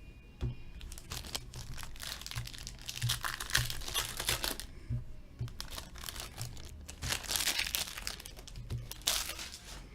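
A trading card pack's wrapper being torn open and crinkled, in two spells of crackling.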